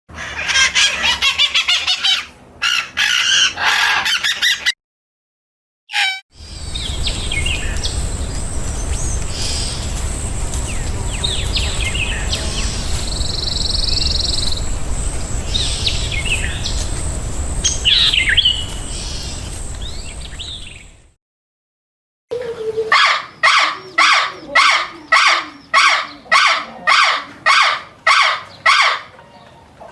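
Birds chirping and calling in three separate stretches with abrupt cuts between them. First comes dense chirping, then scattered chirps over a steady hiss with a constant high tone, and near the end a single bird repeats a call about twice a second.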